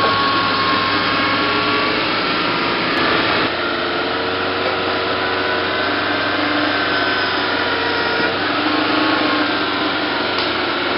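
Off-road 4x4 engine held at high revs under load, a steady, rasping run whose pitch drifts slowly up and down, as the vehicle works through deep mud and up a rutted climb. The sound changes character about three and a half seconds in.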